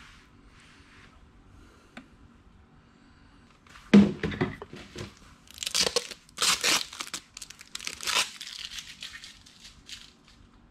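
A sharp knock about four seconds in, then several seconds of crinkling and tearing as a new plastic bottle of Yamalube 10W-40 engine oil is opened.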